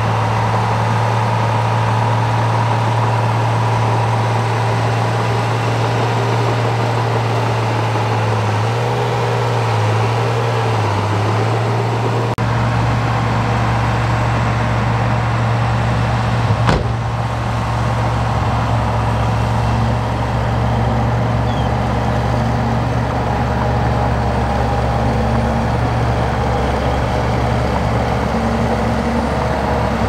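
Heavy diesel earthmoving machinery running steadily, a constant low engine drone. About twelve seconds in the low rumble abruptly gets fuller, and a single sharp click comes a little past halfway.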